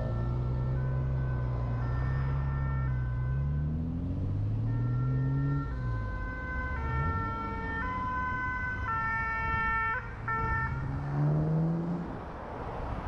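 Two-tone emergency-vehicle siren, alternating between two pitches about once a second and loudest in the second half. Under it, a car engine rises in pitch as it accelerates, drops back about halfway through, then climbs again near the end.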